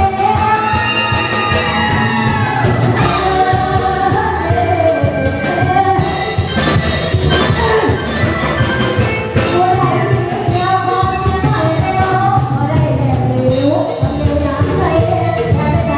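Female singer performing a Thai luk thung song into a microphone over a live band, her voice over a steady bass and drum beat.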